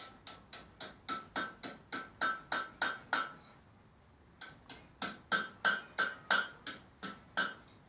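Blacksmith's hammer striking iron on an anvil in a steady rhythm, about four blows a second, each with a short metallic ring. The blows come in two runs with a pause of about a second between them.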